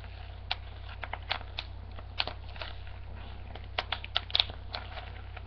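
Plastic bubble wrap crackling as it is squeezed and twisted by hand. Scattered sharp clicks come at an uneven pace, with a burst of the loudest about four seconds in.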